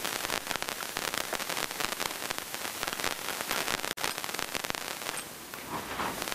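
Dense, irregular metallic clicking and rattling from a chain and fittings being handled at the base of a Hi-Lift jack, easing off about five seconds in.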